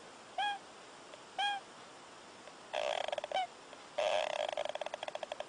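A sleeping pet snoring: two short squeaky whistling notes, then two rasping, buzzy snore breaths, the second one longer.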